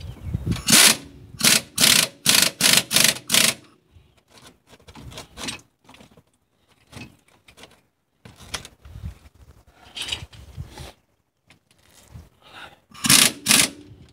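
Pneumatic impact wrench run in short trigger bursts, about six in a row, snugging the brake caliper bolts. Quieter clinks and clatter of tools and parts follow, with a couple more short bursts near the end.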